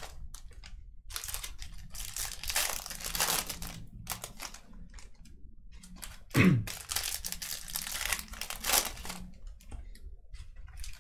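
Trading card pack wrappers crinkling and tearing as packs are ripped open and handled, in irregular crackles. About six seconds in, a brief sound that falls in pitch is the loudest moment.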